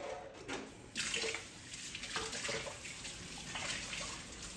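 Water running from a kitchen tap into the sink as hands rinse something under it: a steady hiss of running water that grows a little louder about a second in.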